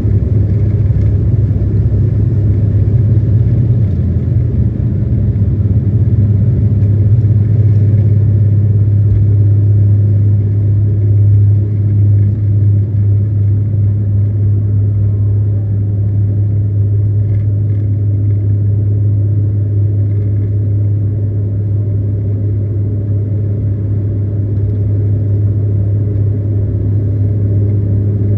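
SpiceJet airliner's engines droning steadily during takeoff, a deep hum holding throughout.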